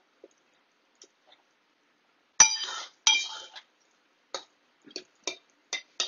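Metal ladle clinking against the sides of an aluminium pot while stirring and mashing a thick vegetable curry. Two louder ringing clanks about two and a half seconds in, then a run of light taps.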